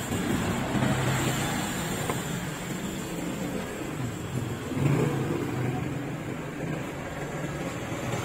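Traffic noise: a motor vehicle's engine running nearby, swelling louder about a second in and again around five seconds in.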